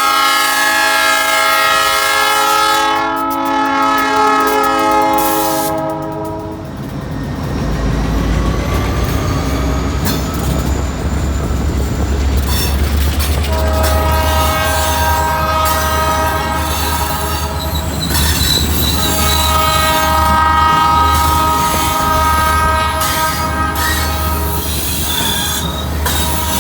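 Diesel freight locomotive's chord air horn blowing long blasts for a grade crossing: one blast lasting to about six seconds in, then two more, from about halfway through until near the end. From about seven seconds in, the deep rumble of the approaching diesel locomotives runs under the horn.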